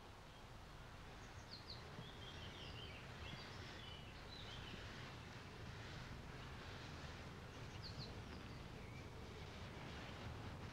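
Faint outdoor ambience: scattered short, high bird chirps over a steady low hum.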